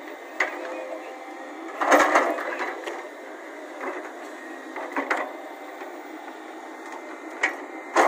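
Volvo crawler excavator working: its diesel engine runs steadily under a faint steady high tone, broken by sharp clanks and knocks as the bucket digs into earth, the loudest about two seconds in and another just before the end.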